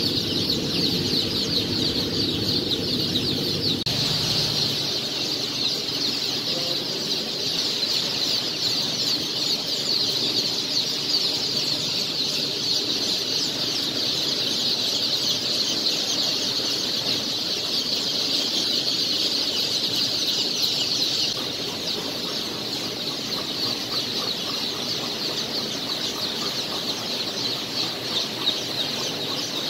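A large flock of young Australorp and Rhode Island Red chicks peeping, a dense, continuous, high-pitched chorus of overlapping chirps.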